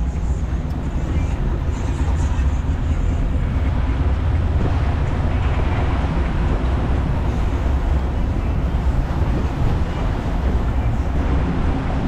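Small motorboat's engine running steadily as a low rumble, with water and wind noise over it.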